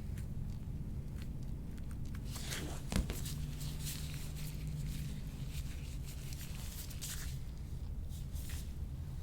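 Handheld chiropractic tool being worked along the toes of a bare foot: a scatter of light clicks and rustling strokes, with one louder knock about three seconds in.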